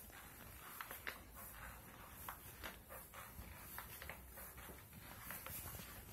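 Footsteps climbing a carpeted staircase: soft, uneven thuds roughly twice a second, over faint steady hiss.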